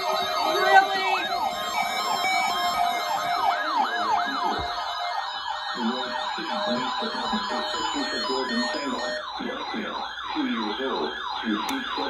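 Several weather alert radios sounding their siren alarms together, overlapping whooping pitch sweeps that repeat at different rates, set off by a Child Abduction Emergency (AMBER Alert) broadcast.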